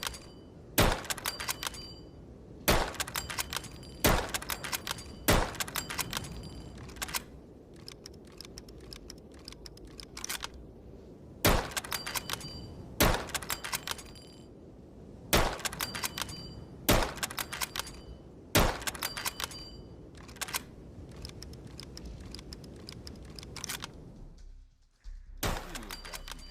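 Springfield rifle firing single shots, one roughly every second and a half. Each shot is followed by a quick run of quieter metallic clicks, and there is a few-second stretch of clicking without shots about a third of the way in.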